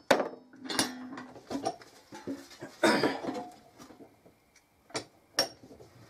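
Claw hammer striking thin sheet metal on a workbench to fold its edges over: several separate metallic knocks with some ringing, the heaviest about three seconds in.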